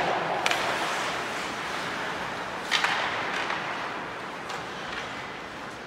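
Ice hockey play: sharp clacks of sticks and puck, echoing in a large ice arena, the clearest about half a second in and again near three seconds, with fainter ones after, over a steady background hiss.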